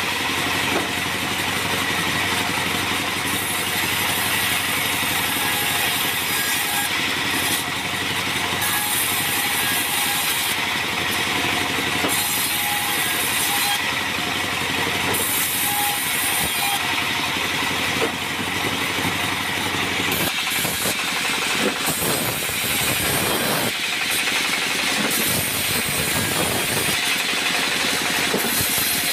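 Bandsaw running steadily, its blade ripping through acacia planks fed by hand.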